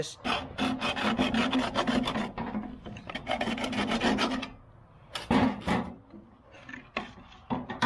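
Hacksaw cutting through a plastic PTO shaft guard tube with back-and-forth rasping strokes, which stop about four and a half seconds in as the cut is finished. A few short knocks follow as the saw and the tube are handled.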